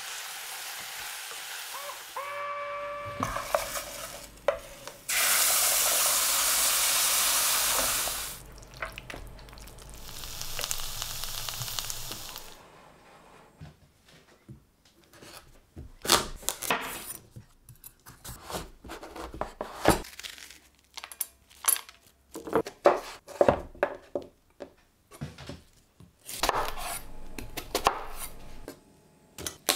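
Butternut squash and oregano frying in a stainless steel pot, stirred with a wooden spoon: a steady sizzle and scraping, with a brief metallic ring from the pot about three seconds in and a louder steady hiss for about three seconds after that. Then a series of sharp separate taps and knocks on a wooden board, ending with a knife slicing through an onion.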